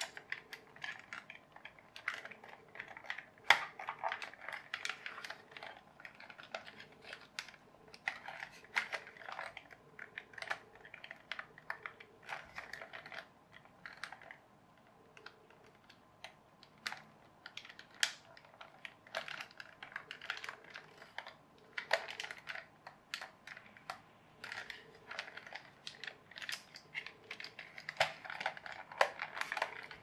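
Metal pick scraping and prying at the clips of a plastic toy bulldozer's body shell: a run of irregular small plastic clicks and scrapes. The sharpest click comes about three and a half seconds in, with a quieter stretch around the middle.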